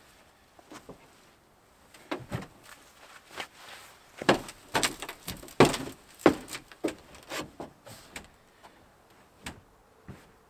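A string of irregular knocks, clunks and short scraping rubs from hands-on installation work on a truck camper, thickest and loudest in the middle and thinning out near the end.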